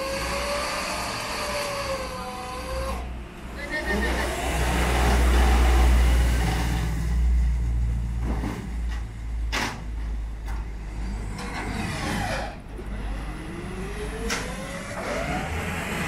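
Flatbed tow truck's winch pulling a car up the tilted bed: a whining tone that slowly rises and falls in pitch over a deep rumble, with several sharp metal clanks in the second half.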